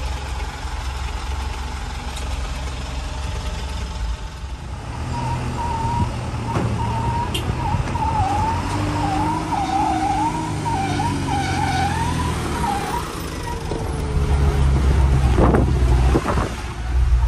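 A truck's diesel engine runs with a steady low rumble that grows louder about two-thirds of the way through. A high warbling tone sounds over it for several seconds in the middle.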